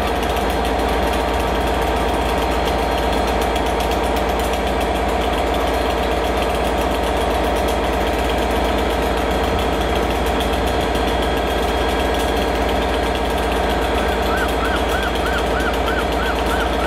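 Class 37 diesel locomotive's English Electric V12 engine running steadily as the locomotive rolls in, a constant low drone with a hum of layered tones. Near the end a high, wavering whistle-like tone joins it.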